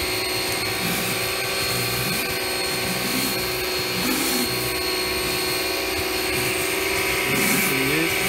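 Bosch AQT 33-11 pressure washer running steadily with a high motor whine, its jet hissing under a Bosch AquaSurf 280 patio cleaner as it is pushed over wet paving.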